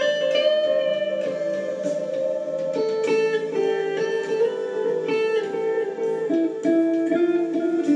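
Electric guitar playing slow ambient music: single notes picked one after another ring on over long held tones, and the held pitch steps down twice.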